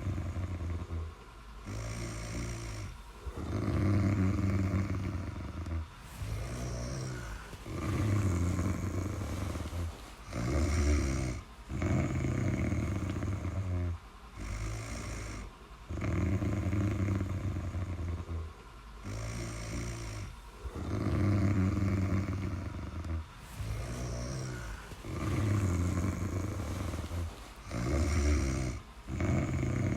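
Snoring in a regular rhythm: one snore every second or two, each separated from the next by a short break for breath.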